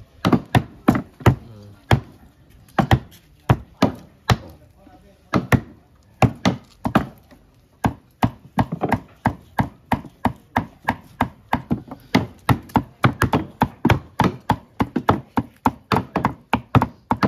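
Knife chopping on a wooden chopping board, repeated sharp strokes. They come irregularly at first, then settle into a steady rhythm of about three strokes a second from roughly eight seconds in.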